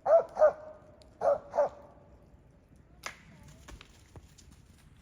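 Squirrel-hunting dog barking four times, in two quick pairs, right after a shot at a treed squirrel. A single sharp snap follows about three seconds in, then a few faint ticks.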